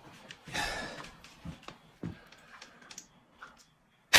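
Breathy, toneless blowing into a toy plastic horn that is barely sounding, with a couple of soft knocks. Right at the end the horn blares out loud.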